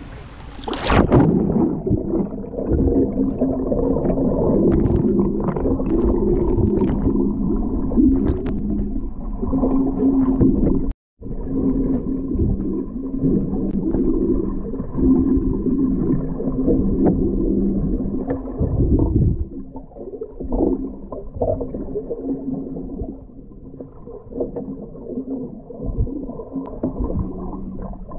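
Muffled underwater sound picked up by a submerged GoPro: a splash about a second in as the camera goes under, then rumbling, gurgling water movement with a steady low hum underneath. The sound cuts out briefly about eleven seconds in.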